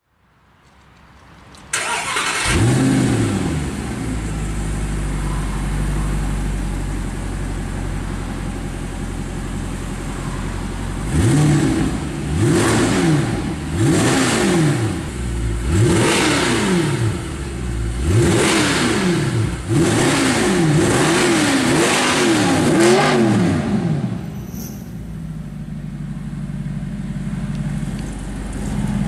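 Mercedes-Benz SLS AMG's 6.2-litre V8 through a Capristo aftermarket exhaust, started about two seconds in with a short flare of revs, then idling. Through the middle it is blipped about nine times in quick succession, each rev rising and falling, before it settles back to idle near the end.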